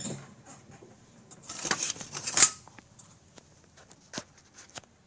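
Handling noise from a hand on the recording device: rubbing and scraping, louder about two seconds in, then a couple of sharp clicks near the end.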